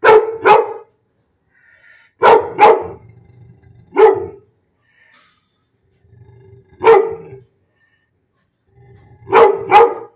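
A dog barking repeatedly, about eight barks in all: two quick pairs, two single barks, then another pair near the end.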